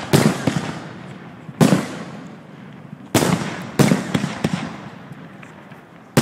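Fireworks bursting: a series of sharp bangs, each followed by a fading rumble and crackle. There are four bangs, with another starting right at the end.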